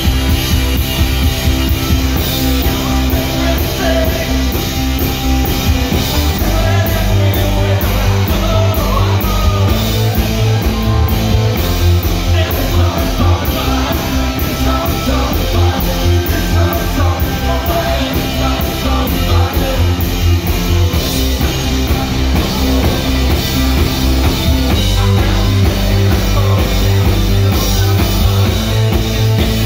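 A rock band playing live: distorted electric guitar, drum kit and keyboards, with a man singing lead vocals over them.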